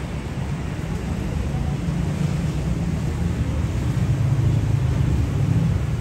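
Road traffic at rush hour, with a heavy vehicle's deep engine rumble swelling over several seconds and easing off near the end.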